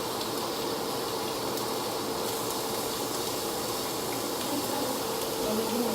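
Steady hiss of food cooking on a stovetop, with a faint steady hum underneath.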